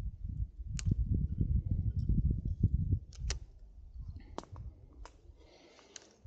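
Spinning reel being wound in: a low rumbling handling noise for about three seconds, then a few sharp clicks.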